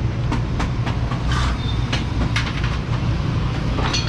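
Scattered clicks and knocks of a worker taking the plastic belly pan off a motorcycle, over a steady low hum.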